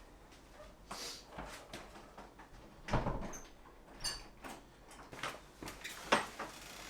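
A few scattered light knocks and clicks over quiet room tone, the loudest about three seconds in and another about six seconds in.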